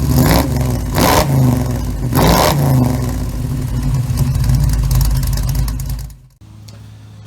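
Small-block Chevy 350 V8 revved in three quick throttle blips in the first few seconds, then running on until it cuts off suddenly about six seconds in, leaving a low steady hum.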